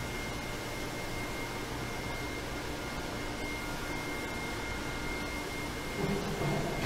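Chocolate refining machinery, a ball mill and conching tanks driven by electric gear motors, running steadily: an even mechanical hum with a thin, high, steady whine over it, growing a little fuller near the end.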